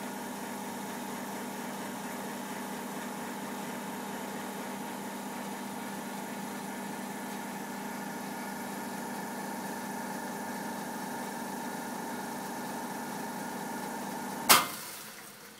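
Espresso machine pump running steadily through a shot on a volumetric button, a steady mechanical hum. Near the end it cuts off with a sharp click as the volumetric dose ends.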